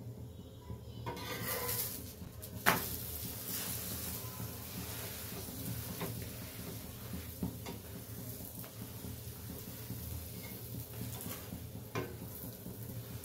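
Puran poli frying in ghee on a tawa: a steady sizzle that swells about a second and a half in. A metal spatula gives one sharp clack against the pan a moment later, as the flatbread is flipped, and lighter taps follow as it is pressed.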